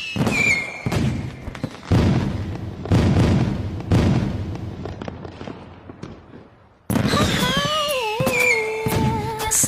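Aerial firework shells bursting: four heavy booms about a second apart, each trailing off, then the sound dies down. About seven seconds in it cuts in abruptly with more bursts, falling whistles and a wavering melodic tone.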